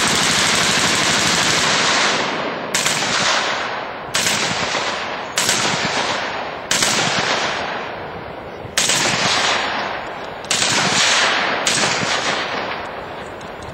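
.30-calibre machine gun firing fully automatic: one long burst of about two seconds, then about seven shorter bursts every second or two, each trailing off in echo.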